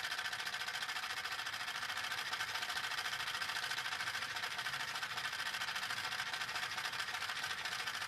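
Homemade jigsaw driven by an outdoor AC fan motor running, its blade mechanism making a steady, fast, even rattle.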